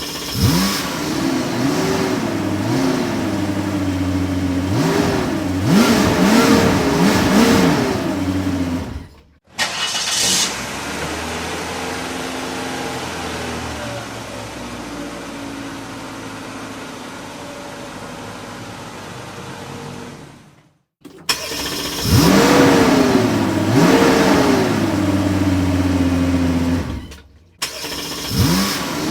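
Car engine revving, its pitch climbing and falling back several times in quick blips. These alternate with a stretch of about eleven seconds of steadier, quieter engine running, with a brief hiss near its start. The stretches are separate recordings that cut abruptly from one to the next.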